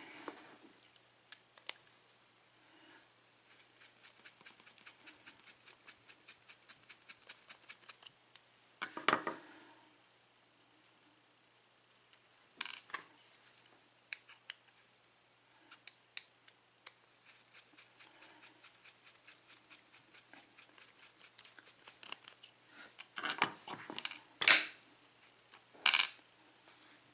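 Small metal parts of a mortise lock cylinder being worked by hand: two long runs of quick, even metallic clicks, with a few louder clacks and rattles in between and a cluster near the end.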